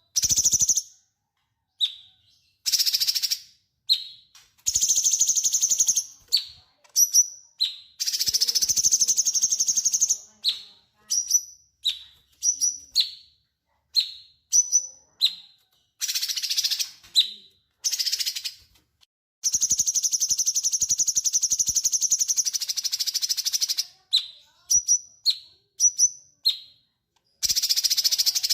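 Cucak cungkok singing energetically: high-pitched phrases of long, rapid trills lasting one to two seconds, mixed with short quick chirps and brief pauses between them.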